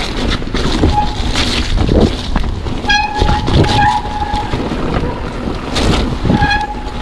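Mountain bike riding fast down a dirt forest trail: tyres rolling over the ground, the bike rattling over bumps and wind rushing over the microphone. A short high-pitched squeal comes about three seconds in and again near the end.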